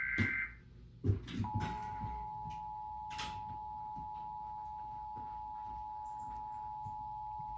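Emergency Alert System test signal: the last half-second of the warbling digital SAME header burst, then a few knocks, then about 1.5 s in the steady two-tone EAS attention signal (853 and 960 Hz sounded together) comes on and holds.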